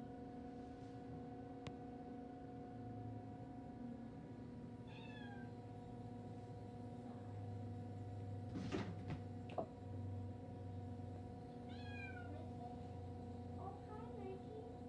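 Bengal cat meowing: a short call falling in pitch about five seconds in, another about twelve seconds in, and a few fainter calls near the end. A knock sounds about nine seconds in, over a steady low hum.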